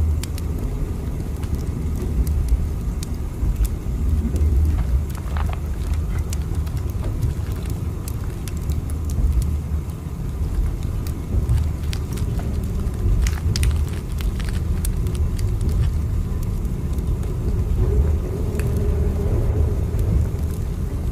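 Steady low rumble of a moving train, with scattered light clicks and creaks.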